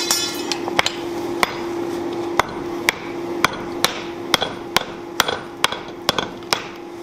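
Hammer blows on a white-hot grader-blade plate being forge welded to the face of a Harbor Freight 55 lb cast iron anvil, about two strikes a second, the first one ringing. A steady hum runs underneath.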